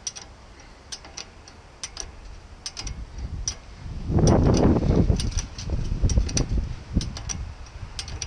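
Hand ratchet clicking in short runs as the caliper bolts are turned in on a Ford Explorer's front brake caliper, with louder knocking and scraping of metal parts in the middle.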